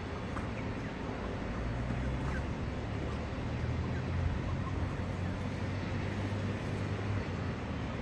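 A low engine drone swells from about a second and a half in and drops away near the end, over steady outdoor noise, with a few faint chicken clucks.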